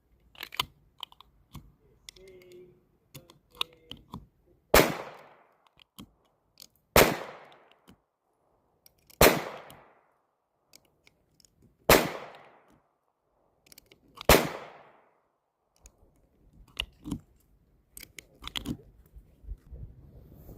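Five gunshots fired one at a time, roughly two to two and a half seconds apart, each with a short echoing tail. Fainter pops and clicks sound between them.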